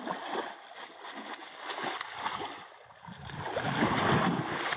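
A big hooked fish thrashing in shallow river water at the bank, splashing repeatedly; the splashing grows louder over the last second and a half.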